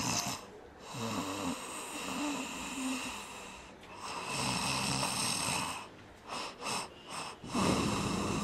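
A man snoring, one long snore every couple of seconds.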